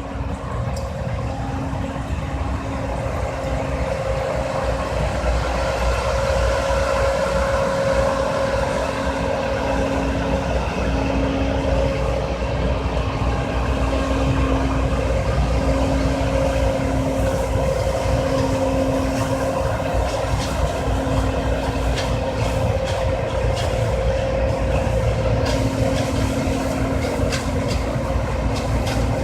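John Deere C670 combine harvester running steadily under load, its engine and threshing machinery making a continuous drone with a steady whine that wavers every couple of seconds.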